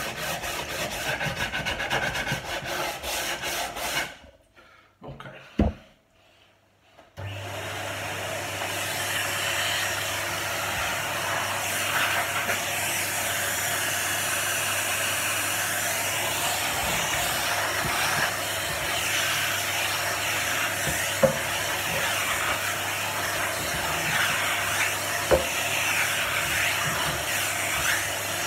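Abrasive sanding of old wood, a dense rubbing noise. It stops about four seconds in, with one sharp click during the pause. About seven seconds in it resumes as a steadier, even sanding noise with a constant low hum under it.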